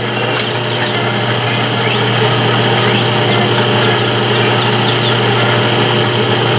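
Metal lathe running steadily: a low hum with a steady high whine.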